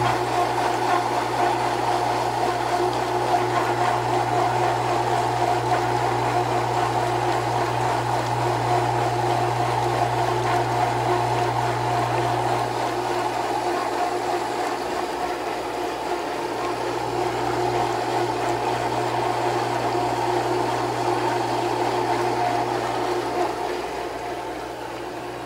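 Jandy Plus HP pool pump, fitted with a new motor, running as it primes: a steady motor hum with water churning through the strainer pot.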